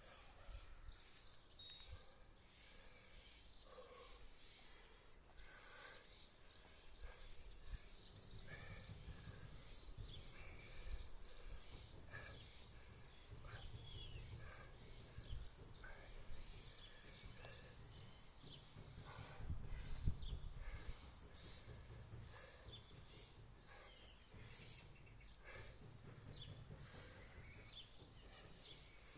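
Faint outdoor ambience: small birds chirping throughout, over a low rumble that grows louder in the second half and peaks briefly about two-thirds of the way through.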